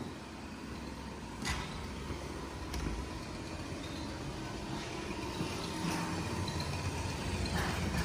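A steady low engine-like rumble that slowly grows louder, with a few faint clicks.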